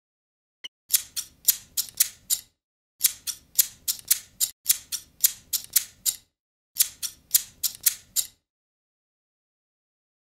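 A series of sharp clicks in four quick runs of six or seven, about four a second, with short pauses between the runs.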